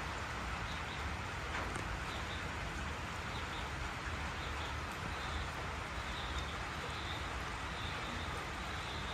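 Steady afternoon rain falling on tropical forest, an even hiss with a few drips and a low rumble underneath. Faint short high chirps from an animal repeat through the second half.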